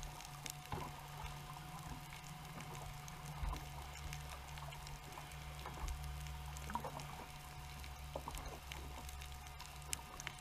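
Underwater ambience picked up by a GoPro in its waterproof housing on hard bottom: scattered crackling clicks over a steady low hum.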